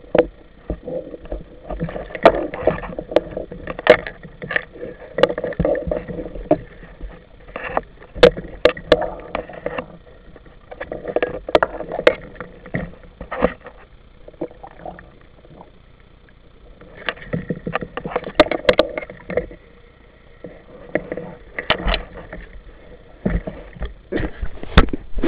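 Underwater camera audio: muffled water rushing and sloshing against the housing in irregular surges, with many sharp clicks and knocks and a few quieter spells.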